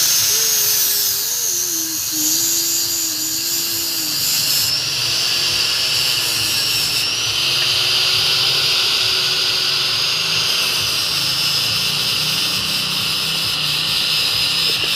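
Electric power tool motor running steadily through the whole stretch: a high whine that drifts slightly up and down in pitch over a hiss of noise.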